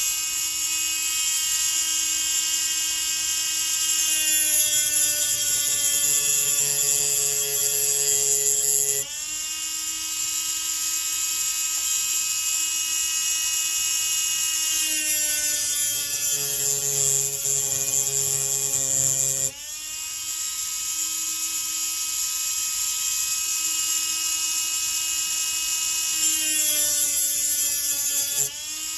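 Small high-speed electric rotary tool whining steadily while it machines a chainsaw piston for gas porting. Three times the tone shifts and grows louder for several seconds as the bit bears into the metal, then drops back suddenly when it is lifted off.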